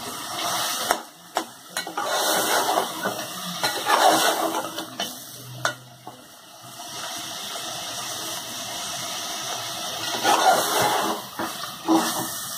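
A slotted metal spatula stirring and scraping a thick spinach-and-beef mixture in a metal pot over the flame, in bunches of strokes, with the oil sizzling steadily between them. This is the bhuna stage of frying, when the masala is cooked until the oil separates.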